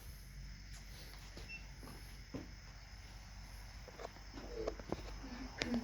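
Quiet room with faint scattered clicks and small knocks over a faint low hum and a faint high steady tone. A few soft murmurs come near the end.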